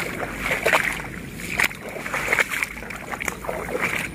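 Footsteps wading through shallow water in a flooded rice paddy: irregular sloshing and splashing strokes with the rice plants brushing past.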